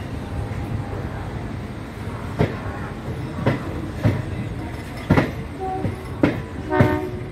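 Passenger train running along the track: a steady rumble with sharp clacks of the coach wheels over rail joints, roughly one a second.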